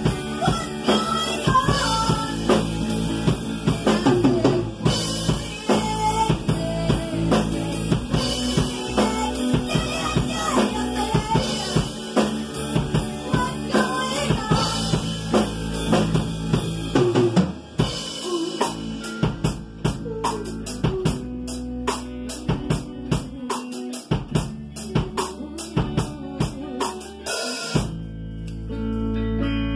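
Live rock band playing in a room: female lead vocal over electric guitar, bass guitar and a Sonor drum kit. For the first half the voice leads. Then the drums keep a steady beat with cymbals and the vocal drops back. Near the end the drumming stops and the guitars ring on.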